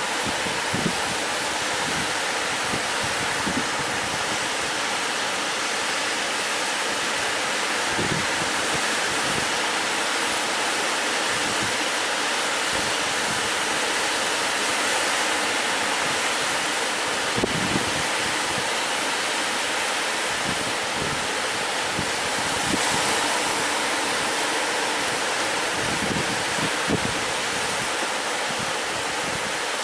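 Steady rush of sea surf and wind, with a few brief low buffets of wind on the microphone.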